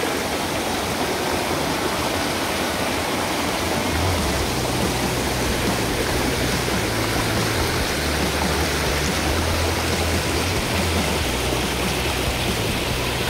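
Dulhunty River water rushing steadily.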